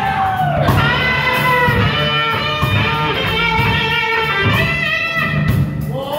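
Live blues band playing, with an electric guitar carrying the melody over bass and drums.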